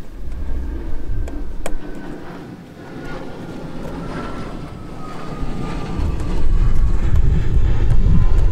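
A distant engine passing by: a low rumble that grows louder over the last few seconds, with a faint whine slowly falling in pitch, and a few light clicks.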